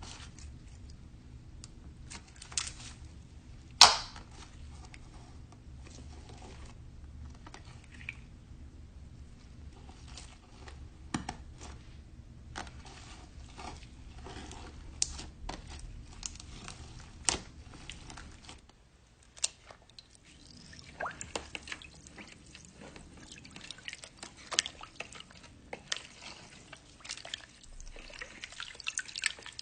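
Slime being squished and stretched by hand, giving wet sticky pops, clicks and crackles. A low steady hum lies under the first part and drops away about two-thirds of the way through.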